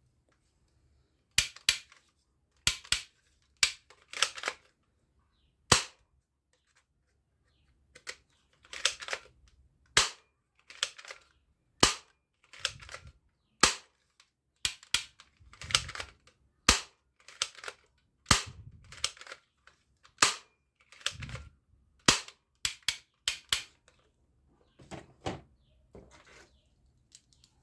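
Plastic toy gun being worked and fired: a string of sharp, irregular clicks and snaps, about one a second, some in quick pairs.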